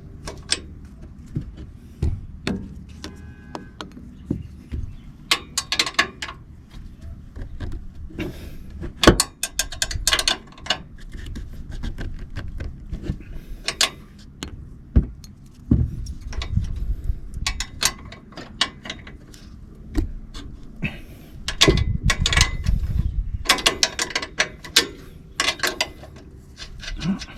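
Hand wrench working the nuts on a 2024 Toyota Tacoma's front coilover top mount, loosening them: scattered metallic clicks and clinks with several bursts of rapid clicking.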